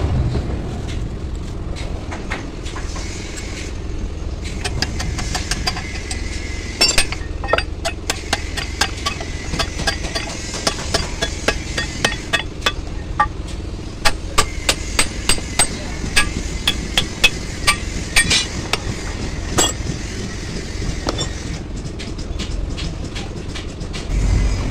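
Hammer blows on a steel drift set in the pivot bore of a heavy truck's cast bell-crank lever: sharp metal-on-metal strikes, coming in runs of several a second, with a steady low rumble underneath.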